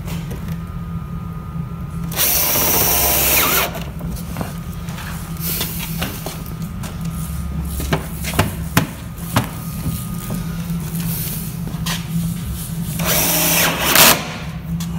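Cordless drill running in two bursts, one about two seconds in lasting over a second and a shorter one near the end, drilling fastener holes through a fibreglass wide-body fender flare and the car's body panel. Light clicks and knocks of handling in between, over a steady low hum.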